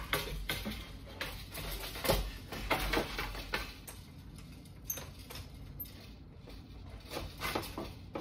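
Loom harness frames and wire heddles being handled inside a wooden floor loom: irregular light knocks, clicks and rattles, busier in the first few seconds, sparser after.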